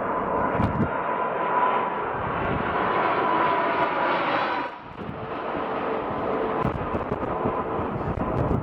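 Jet airliner engines running in a steady rumble with a thin high whine, dipping briefly about five seconds in.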